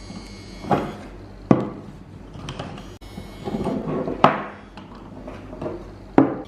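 A handful of sharp knocks and clatters at uneven intervals, with some rough handling noise between them, as of objects being picked up and set down on a hard surface.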